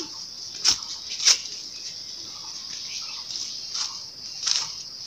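A steady high insect chorus with a few sharp knocks and scuffs, four in all, from people in rubber slides climbing up onto a large tree stump.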